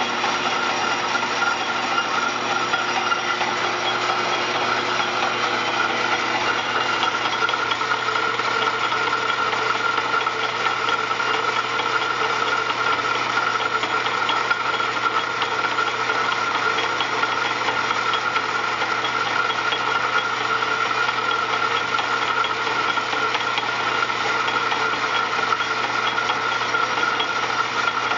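Mid-to-late-1800s Morse lathe running steadily under power feed, its steel-cutting tool turning a poplar blank down to a 5/8-inch dowel. The machine's constant running noise carries a steady tone throughout, with no breaks.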